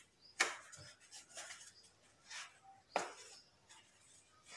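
Foam sponge being squeezed and rubbed between the hands, with soft scuffs and two sharp clicks, one about half a second in and one about three seconds in.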